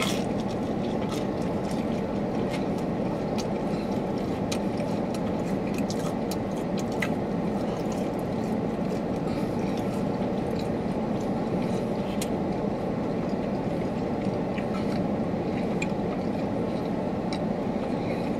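Steady low hum of a car cabin, with faint scattered clicks of close-up chewing as pizza is eaten.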